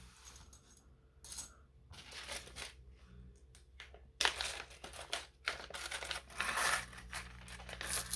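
Metal board-game coins clinking against each other as they are handled, with heavier, denser clinks from about four seconds in.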